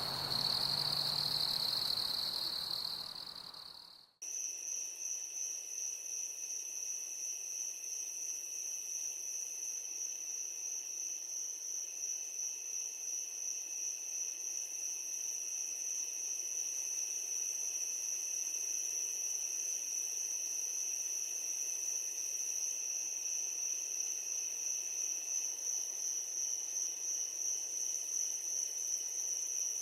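Night insects, crickets by their sound, trilling steadily. The first chorus fades out about four seconds in and a higher-pitched, finely pulsing trill with a fainter lower one starts abruptly and carries on.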